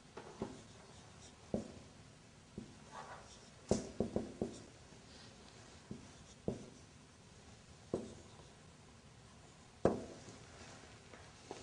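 Marker writing on a whiteboard: a string of irregular taps and short strokes as the pen meets the board, with a quick cluster of taps about four seconds in and a sharp tap near the end.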